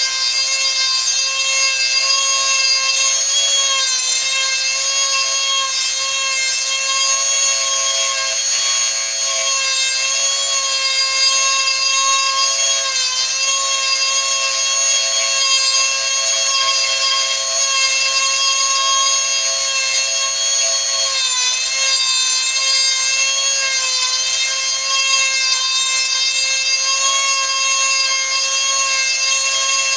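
Handheld rotary tool running with a steady high-pitched whine as its small bit carves into a piece of wood. The pitch sags briefly a few times as the bit is pressed into the wood.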